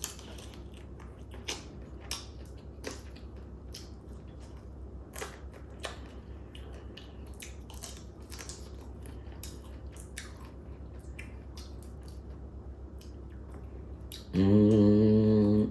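Crab shells cracking and being picked apart while eating, heard as scattered sharp clicks and crunches with chewing between them. Near the end a voice holds one long hummed note.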